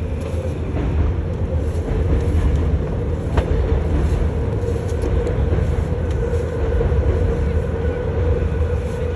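Steady low rumble and drone of a river tour boat's engine under way, with a constant hum over the deep rumble.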